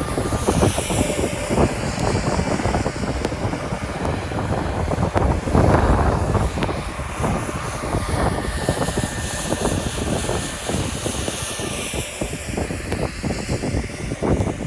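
Skis scraping and carving on snow during a downhill run, with wind rushing over the microphone; the rush swells briefly about six seconds in.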